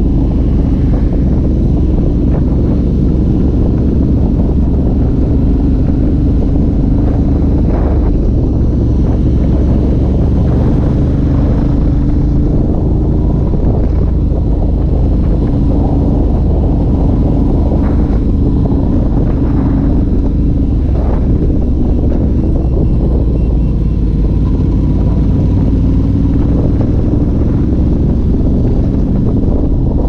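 Ducati Multistrada 1200S's 1198 cc Testastretta DVT L-twin running under way through a Termignoni full racing exhaust, a steady deep rumble with the engine note shifting only slightly.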